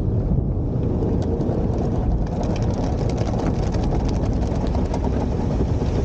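Automatic car wash heard from inside the car's cabin: a steady low rumble from the wash, with water jets spattering on the windshield and body. The spattering starts about a second in and grows denser about two seconds in.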